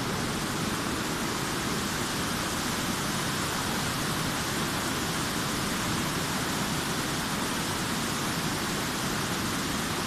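Waterfall water rushing over rock: a steady, unbroken hiss without gaps or changes.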